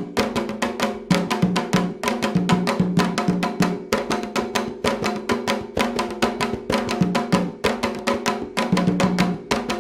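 Candomblé ritual music for Xangô: drums and a sharp, wood-block-like percussion playing a fast, dense rhythm, with steady pitched tones underneath.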